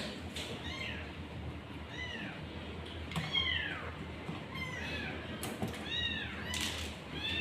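A domestic cat meowing repeatedly: about seven short, high-pitched meows, each rising and falling in pitch, a second or so apart.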